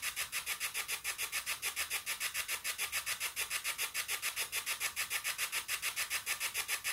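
Spirit box sweeping through radio stations: a steady, rapidly chopping static hiss of about seven pulses a second, with no voice coming through.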